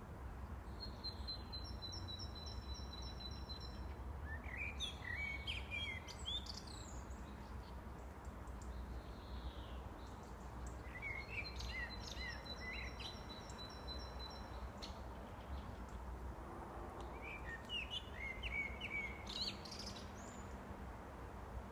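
Common blackbird singing: three fluty, warbling phrases several seconds apart, with a rapid run of high repeated notes twice, over a steady low background rumble.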